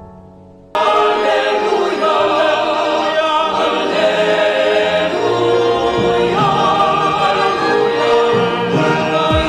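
Choir singing with instrumental accompaniment. A soft held chord opens, and less than a second in the full choir and accompaniment cut in loud and stay steady.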